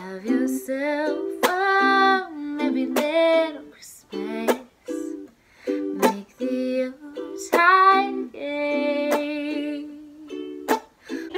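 A woman singing while playing a ukulele, plucked notes and strums under sung phrases with short pauses between them.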